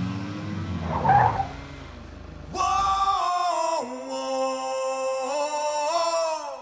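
A car engine running and dropping in pitch as the car pulls up and slows, with a brief squeal about a second in. Then, from about two and a half seconds, background film music: a long held sung note that steps down in pitch and later back up.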